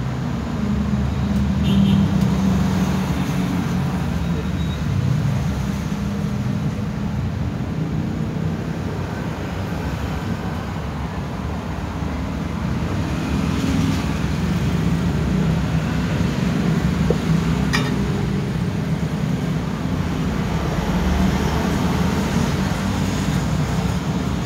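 A steady low rumble, like engine or road traffic noise, with a faint click about 18 seconds in.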